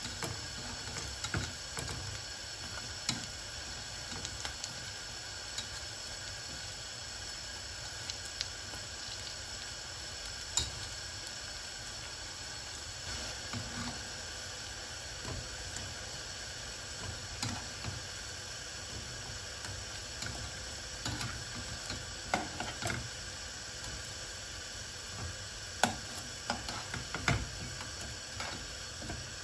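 Çubuk pişi dough sticks deep-frying in hot oil, a steady sizzle. Scattered short sharp clicks and pops sound through it, more of them in the last few seconds.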